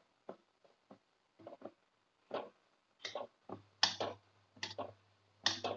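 Metal spatula scraping and knocking against a wok while stirring fried shallots in oil, in short uneven strokes about one or two a second.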